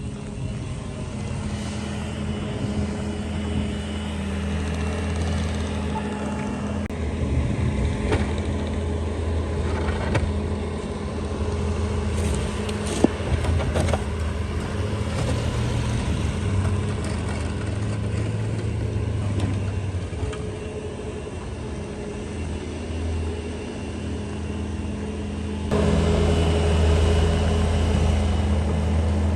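A vehicle engine running steadily, with a single sharp click about halfway through; it gets suddenly louder near the end.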